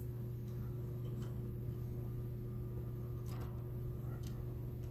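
A few faint ticks and light clicks of a small screwdriver on laptop motherboard screws, over a steady low electrical hum.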